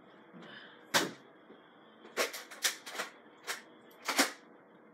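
Nerf blaster clicking and clacking as it is handled and fired: one sharp plastic click about a second in, then a quick run of sharp clicks.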